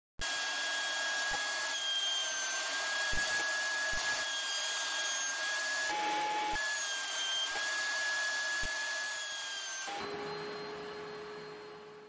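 Table-mounted wood router running with a high steady whine while a hardwood stick is fed past the bit, the pitch dipping slightly as it cuts. About ten seconds in the motor is switched off and the sound dies away as it coasts down.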